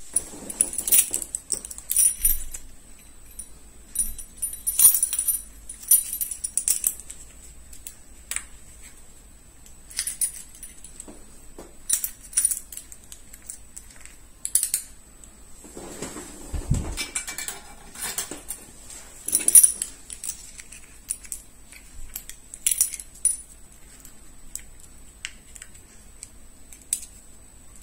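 Metal hinge fittings of a soft-close toilet seat clicking and clinking as they are handled and screwed together, with small metal parts tapping against each other. A duller knock comes a little past halfway.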